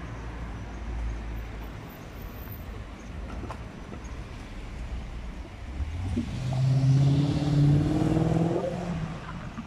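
A car accelerating past close by, its engine note rising in pitch and loudest about seven seconds in, over a low rumble of street traffic.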